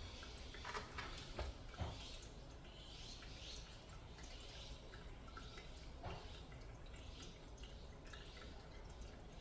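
A cat lapping water, as a run of faint, quick, irregular wet clicks and drips.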